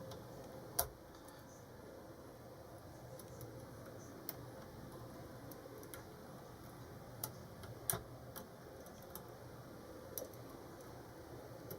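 Faint, scattered clicks of a lock pick probing the pin stack inside a Jaco 38mm pin-tumbler padlock, with sharper clicks about a second in and around eight seconds.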